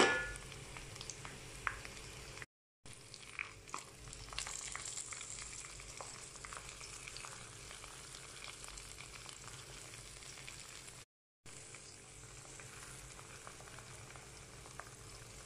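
Minced meat frying in hot oil with browned onions in a frying pan: a steady, faint sizzle with small crackles, after a sharp knock at the very start. The sound cuts out completely twice, briefly.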